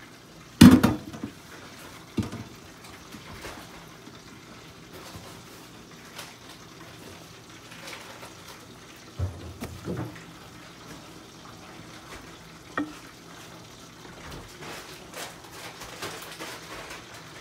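Spoons stirring and scraping freshly drained elbow macaroni in a metal bowl, with a sharp knock of utensil on metal about half a second in and a few softer clunks later. A steady hiss of frying runs underneath.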